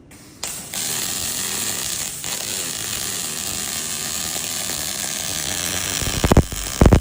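Miller RMD short-circuit MIG welding arc laying a root pass with 1 mm wire: it strikes about half a second in and runs as a steady, even hiss and crackle. Near the end, loud electronic music with a heavy beat cuts in over it.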